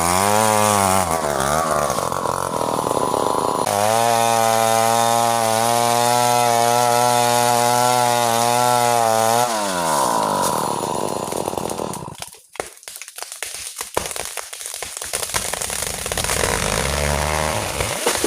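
Two-stroke chainsaw cutting into ironwood: the engine revs, then runs high and steady under the cut for several seconds before the revs fall away about ten seconds in. A stretch of sharp cracks and crackling follows, and the saw is heard again at a low idle near the end.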